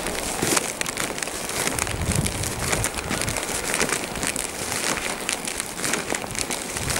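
Footsteps crunching through deep fresh snow, a dense, crackly crunch that goes on without a break.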